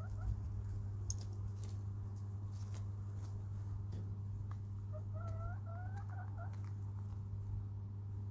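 A domestic hen gives a run of about seven short rising calls, a soft chatter, about five seconds in. A few sharp clicks come earlier, all over a steady low hum.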